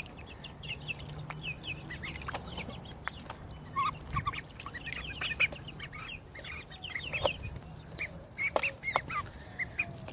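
A group of young chickens peeping busily: many short, high chirps that fall in pitch, overlapping without pause, with a few sharp clicks among them.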